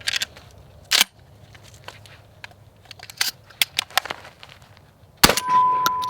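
A single gunshot about five seconds in, followed by a clear metallic ring that fades over about two seconds. Smaller sharp cracks and knocks come before it.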